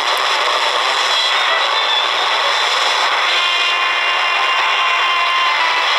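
Shortwave static from a Redsun RP300 portable receiver's speaker as it is tuned between stations on the 49-metre band: a steady hiss with faint whistling tones, several more coming in about three seconds in. The owner puts the band's noisiness down to FM stations from the city breaking through the receiver.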